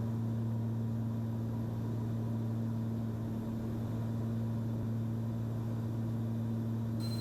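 Cessna 340's twin piston engines and propellers droning steadily in cruise-descent, heard as cabin noise through the headset intercom: an even low hum with no change in pitch.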